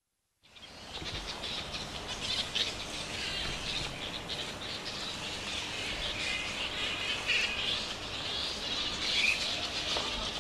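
A roosting colony of grey-headed flying foxes, fading in about half a second in: a dense, steady chatter of many high squawks and screeches as the bats call to and squabble with their neighbours on the branches.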